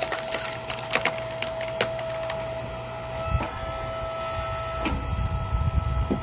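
Twisted-grain firewood log cracking and splintering apart under a hydraulic log splitter: a run of sharp cracks and snaps over a steady hum, with a low rumble from about halfway and a loud crack near the end.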